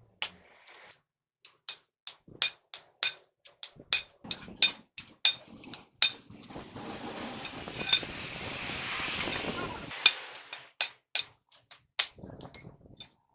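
A hammer striking metal parts again and again, each blow ringing briefly. In the middle comes a few seconds of steady rushing noise, with the strikes carrying on over it.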